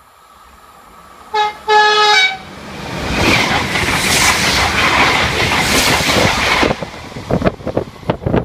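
Double-deck TER electric train sounding its horn twice, a short blast then a longer one, as it nears the platform, then rushing past at speed. The passing noise cuts off suddenly about seven seconds in, leaving gusts of wind on the microphone.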